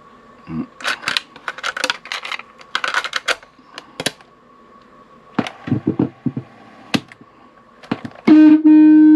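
Irregular clicks and knocks from the Sony WA-55 cassette recorder being handled. About eight seconds in, a loud, steady, distorted tone with a stack of overtones starts abruptly and holds.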